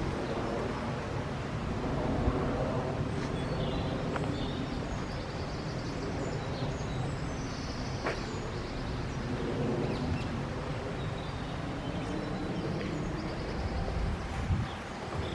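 Outdoor background noise: a steady low rumble, with faint high chirps over it.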